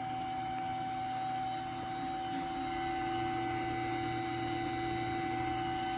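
Steady machinery hum carrying several steady tones, one of them clearly higher-pitched; a lower tone joins about two seconds in and holds.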